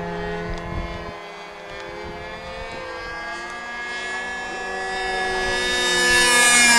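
Radio-controlled model airplane engine and propeller buzzing in flight, a steady pitched drone that grows louder over the last few seconds as the plane flies close, its pitch starting to drop near the end as it passes.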